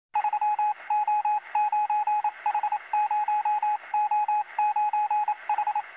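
Rapid electronic beeping at a single pitch, like a Morse or telegraph signal, in about eight quick groups of short beeps with brief gaps between them. It sounds thin, as if heard over a radio or telephone line.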